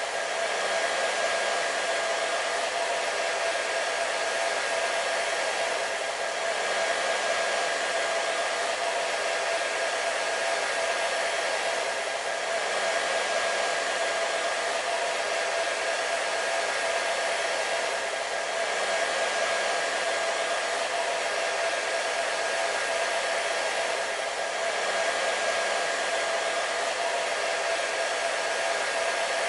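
Hair dryer running steadily: an even rush of blown air with a steady motor whine underneath, unchanging throughout.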